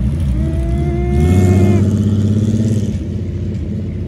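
Sand rail's engine revving as it pulls away, its pitch rising for about a second and a half. The sound drops off about three seconds in as the car moves off.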